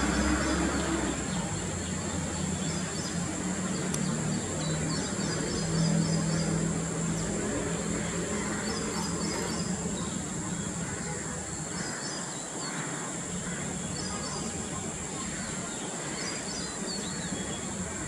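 Outdoor background: a steady high whine, a low rumble like distant traffic that fades somewhat after the middle, and short runs of high bird chirps every two or three seconds.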